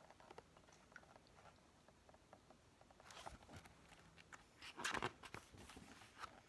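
Faint rustling and crinkling of a picture book's paper pages being handled and turned, in two short bursts about three and five seconds in.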